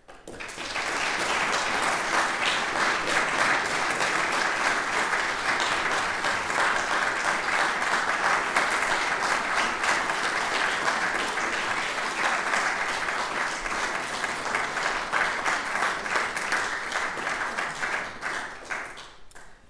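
Audience applauding, the clapping breaking out about half a second in, holding steady and dying away just before the end.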